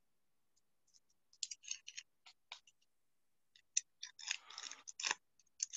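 Basketball trading cards being handled and the next pack being opened: scattered light clicks and short scrapes about a second and a half in, then more clicks and a longer crinkling scrape around four and a half seconds in.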